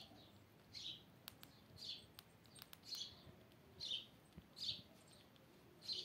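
Faint, high, short chirp calls repeating about once a second, each falling in pitch, with a few faint clicks between them.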